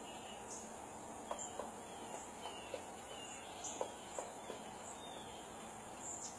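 Pileated woodpecker chiselling into a tree trunk: about a dozen irregular knocks of its bill on the wood, bunched in the middle few seconds, over a steady chorus of insects.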